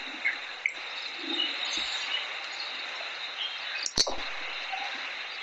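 Steady background hiss with faint high chirping, and a sharp click about four seconds in.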